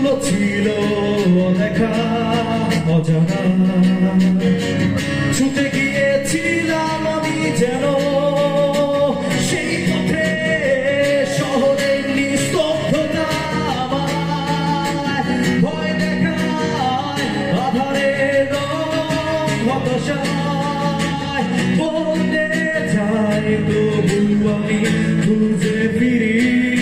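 Live unplugged band music: a man singing a melody over two acoustic guitars.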